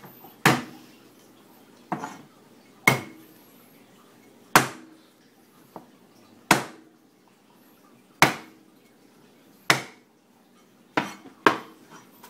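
Cleaver chopping garlic cloves on a plastic cutting board: about ten separate sharp knocks, one every second or two.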